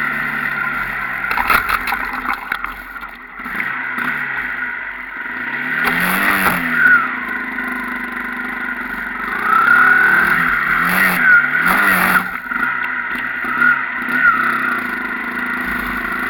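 Enduro dirt bike engine revving up and down repeatedly as the throttle is opened and closed, with short bursts of rushing noise between the rev cycles.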